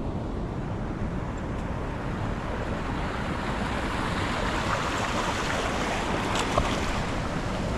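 Rushing water of small creek waterfalls and rapids: a steady, fairly loud rush with a low rumble underneath, growing brighter and hissier partway through. A single short, sharp tick comes about six and a half seconds in.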